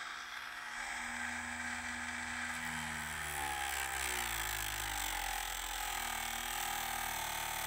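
Dremel rotary tool with a cut-off wheel running steadily at low speed, its pitch wavering a little around the middle.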